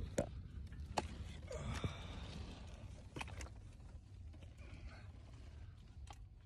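Handling noise in a cramped crawlspace: a handful of sharp clicks and knocks with faint rustling, over a steady low rumble.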